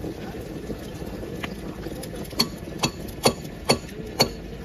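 Thermite charge burning in the crucible over a rail-weld mould, making a steady rush. From about halfway through, sharp knocks come roughly twice a second and are the loudest sounds.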